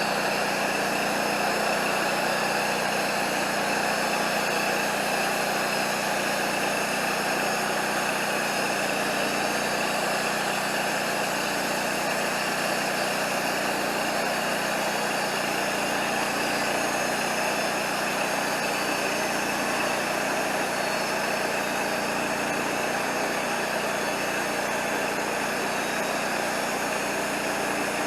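The Wood-Mizer LT40 portable bandsaw mill's engine running steadily.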